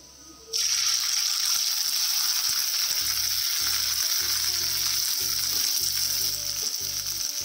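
Small omena fish tipped into hot oil in an aluminium pan, which bursts into a loud, steady sizzle about half a second in as they start to deep fry. The sizzle carries on evenly while they are stirred with a spatula.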